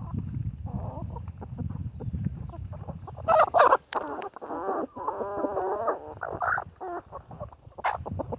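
Chickens clucking and calling, with a loud burst of calls a little after three seconds in and a longer run of pitched squawking calls just after, then a few short clucks. A low rumbling noise sits underneath in the first half.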